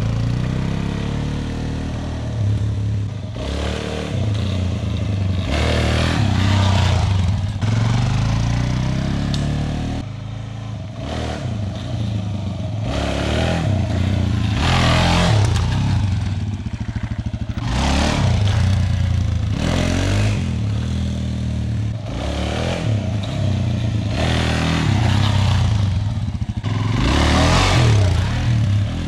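Suzuki DR-Z400S single-cylinder dual-sport motorcycle engine revving hard and easing off again and again as the bike is pulled up into wheelies, with a brief break about ten seconds in.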